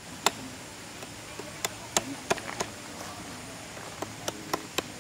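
Long knife blade cutting and splitting thin bamboo strips: a run of sharp, irregular clicks and knocks, clustered in quick groups around two seconds in and again near the end.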